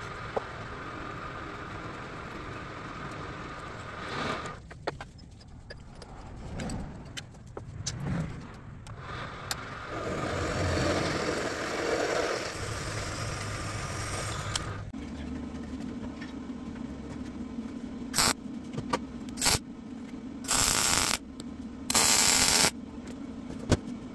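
A drill press drills into a steel bar clamped in a machine vise, its noise rising and falling as the bit cuts. About fifteen seconds in, the sound changes to a steady hum with five bursts of MIG welding, three short and then two longer, as the wrench's steel parts are welded.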